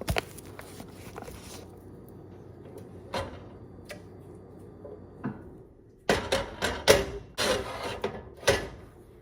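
Kitchen handling noises while coffee is being made: a couple of isolated knocks, then a run of sharp knocks and clatter with some rubbing from about six seconds in.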